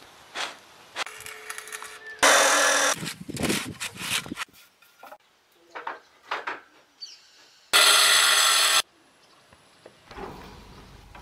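Building-site hand work: repeated rasping, scraping strokes like sawing or scrubbing, broken by two loud, harsh bursts of about a second each, about two and eight seconds in.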